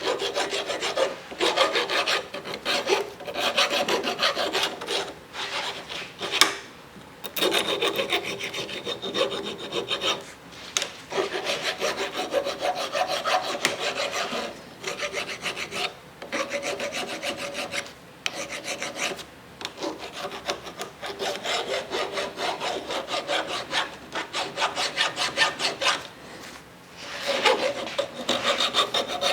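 Hand tool rasping back and forth on metal in rapid strokes, in runs broken by short pauses.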